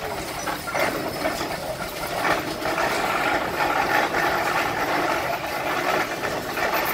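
Antique traction engine driving slowly on steel wheels, its open gearing giving a steady, dense mechanical clatter.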